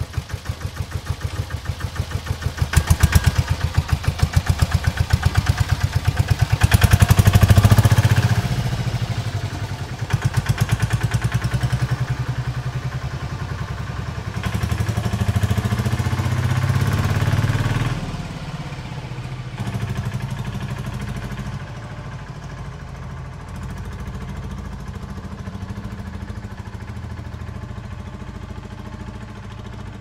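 Diesel auto-rickshaw engine just after starting, running with a rapid, even knocking beat. It swells louder twice in the first eight seconds, then settles and runs steadily as the auto moves off.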